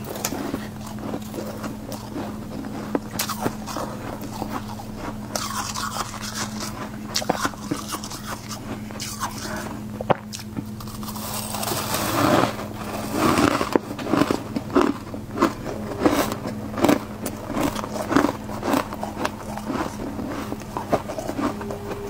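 A metal spoon scrapes frost from the walls of a chest freezer. Then a mouthful of the frost is bitten and chewed, with sharp crunches about twice a second through the second half, over a steady low hum.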